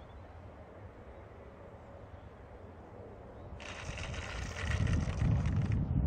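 Ripmax WOT 4 Mk2 Foam-E model plane rolling out through grass on landing: a rustling hiss starts about three and a half seconds in and stops just before the end as the plane comes to rest. Wind buffets the microphone, growing louder in the second half.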